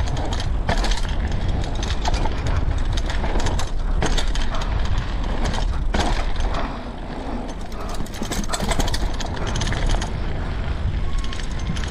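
Mountain bike rattling and knocking as it is ridden over a rough woodland trail, with the clicking of the coasting freehub and wind rumbling on the microphone.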